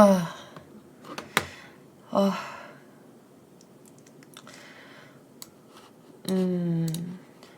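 A man's voice making wordless sounds between sentences: a brief 'ah' at the start, another short one about two seconds in, and a long held 'mmm' near the end, with a few sharp clicks in between.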